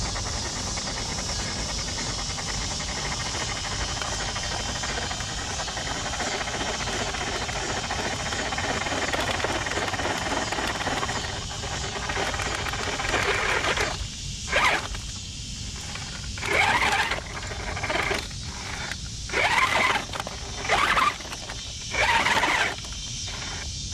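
Electric motor and geared drivetrain of a scale RC rock crawler working as it climbs, first a steady whine and hiss, then from about halfway a series of about seven short throttle bursts that rise and fall in pitch, with the tyres scrabbling for grip.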